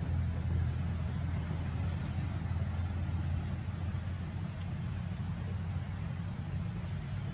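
A steady low rumble with a constant hum, even in level.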